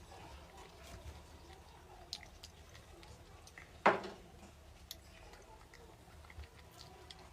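Close-up soft, wet chewing and small mouth clicks of someone eating rolled crepe cake, with one louder sharp click or smack about four seconds in.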